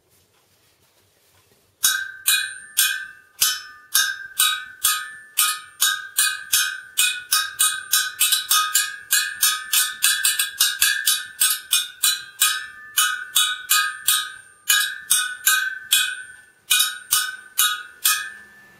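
Stainless steel spokes of a freshly laced motorcycle wheel being plucked one after another, each giving a short metallic ping at about three a second, to check that the spoke tension is even. The pings start suddenly about two seconds in and pause briefly near the end.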